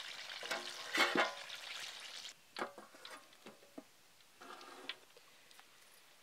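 Bananas deep-frying in hot oil in an iron wok, sizzling for the first two seconds while being lifted out with a wire skimmer. Then a few light metal clinks and a short hiss, and quieter sizzle toward the end.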